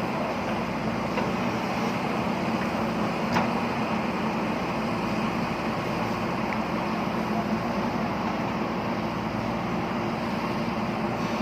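JCB backhoe loader's diesel engine running steadily, with one short click about three seconds in.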